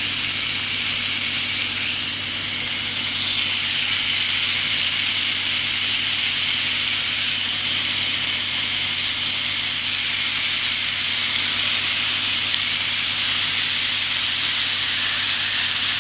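Raw ground-beef patties sizzling steadily on the hot ridged plate of an electric indoor grill set to about 350 degrees, a constant high hiss as the meat is laid down.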